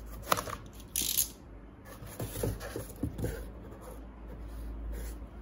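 Utility knife slicing through corrugated cardboard: a short scraping cut about a second in, then a few soft knocks as the cut box is handled.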